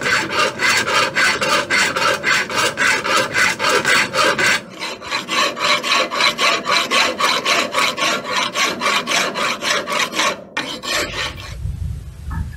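Flat hand file rasping back and forth across a forged steel axe head held in a vise, about two to three strokes a second. The filing stops a couple of seconds before the end.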